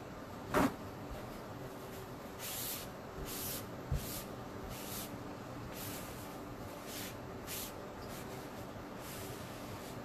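Paper towel wiping over a wet silkscreen transfer in short rubbing strokes, roughly one every half second to a second. A sharp click comes about half a second in, and a dull knock near four seconds.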